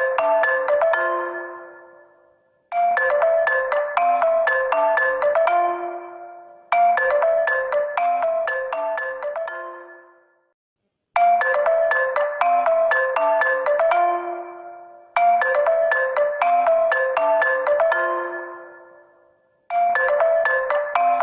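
Honor phone ringtone: a short melody of bright marimba-like mallet notes that loops about every four seconds. Each time it fades out, then breaks off in a brief silence before it starts again.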